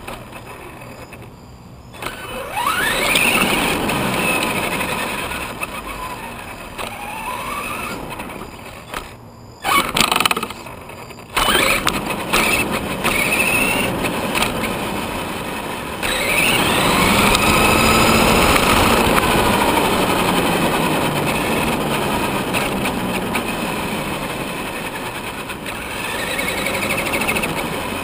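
Traxxas Summit RC truck's electric motor and drivetrain whining over tyre noise on asphalt, as heard from a camera mounted on the truck. The whine rises in pitch each time the truck accelerates, three times, and the sound briefly drops out a few times in the first half.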